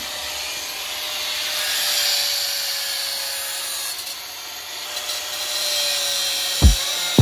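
Grinder working on the steel rim of a spoked motorcycle wheel, a steady rasping grind with a faint motor whine under it. Near the end a single deep thump cuts in.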